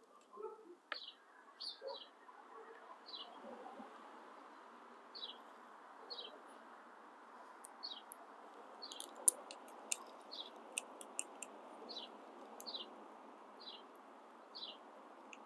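A bird chirping over and over, single short high notes about once a second, over faint background noise. A few sharp little clicks about eight to eleven seconds in, from hand work on the bike's front brake.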